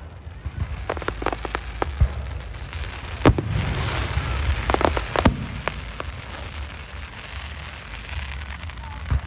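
Fireworks going off: irregular sharp bangs and pops over a low rumble, the loudest bang about three seconds in. From about three to six seconds in there is a stretch of dense crackling.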